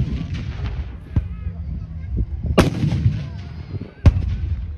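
Artillery pieces firing: two loud gun reports about a second and a half apart, each trailed by a low rumbling echo, with a lighter bang about a second in.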